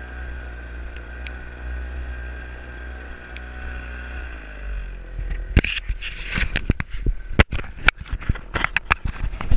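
Lawn mower engine running steadily, its pitch sagging lower about four to five seconds in. After that comes a rapid irregular series of sharp clicks and knocks.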